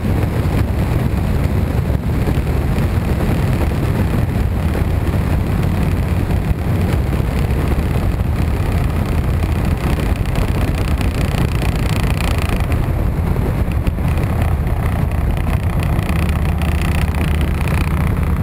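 Motor vehicle engine running steadily at road speed, with wind buffeting the microphone and road noise. The low engine hum becomes smoother and more even for the last couple of seconds.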